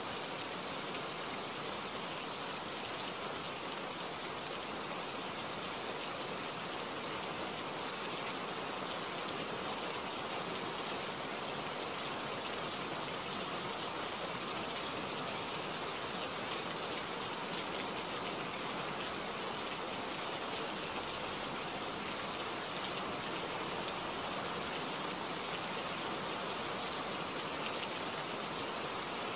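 Steady rain falling in a forest: an even, unbroken hiss of many drops, with no break or change.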